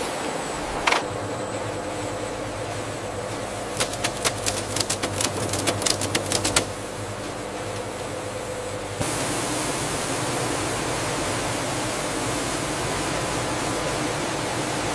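Processing-line conveyor machinery running with a steady hum. A quick flurry of clicking and rattling comes from about four to six and a half seconds in, and from about nine seconds in a louder, even hiss joins the hum.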